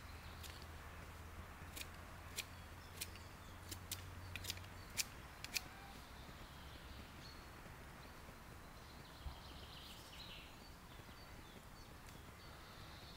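A run of about nine light, sharp clicks over a few seconds from a knife being worked on a small wooden stick, over faint birdsong.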